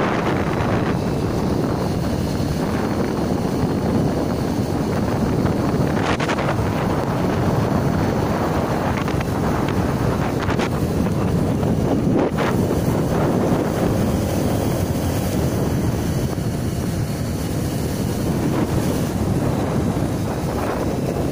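Steady wind noise rushing over the microphone of a motorcycle being ridden at speed on a wet road, covering most of the engine and tyre sound. A few brief knocks come through, about six, ten and twelve seconds in.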